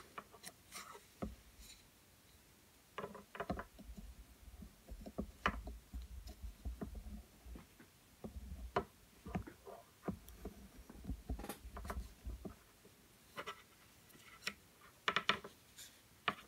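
Soft, irregular clicks and taps of wooden knitting needles as stitches are knitted two together, with faint rubbing of yarn and a few dull low bumps.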